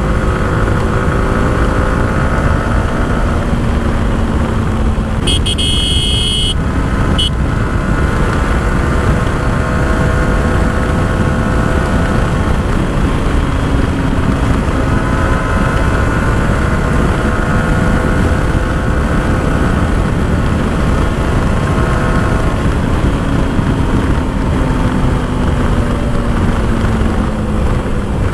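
Yamaha R15 V4's single-cylinder engine cruising on the highway, its note drifting slowly up and down, under heavy wind rush on the microphone. A vehicle horn sounds for about a second and a half about five seconds in, with a short second blast about a second later.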